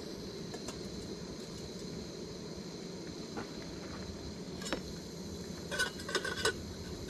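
Small gas canister camp stove burning with a steady hiss, with a few light metal clinks near the end.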